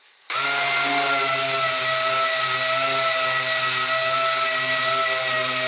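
Pneumatic dual-action (DA) sander starting suddenly just after the start and then running steadily at full speed, a steady whine over a loud hiss, as its pad scuffs the primer on a steel wheel arch ahead of the top coat.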